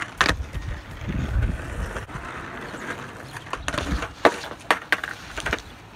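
Skateboard wheels rolling on a concrete drain bank, then several sharp clacks of the board hitting the concrete, the loudest about four seconds in.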